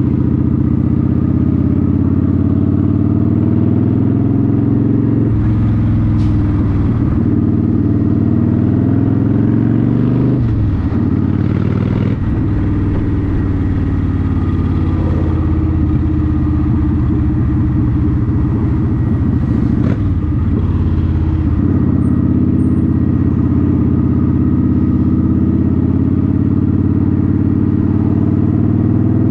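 Motorcycle engine running under way, loud and steady, its pitch dipping and climbing again several times.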